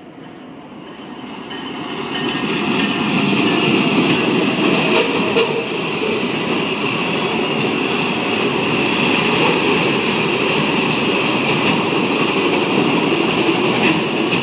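Freight train passing close by: the noise of the Kansas City Southern ES44AC diesel locomotive and the leading cars grows fast over the first few seconds. Then a string of auto rack cars rolls by with a steady wheel-on-rail rumble and a thin constant ring above it, with an odd click from the wheels.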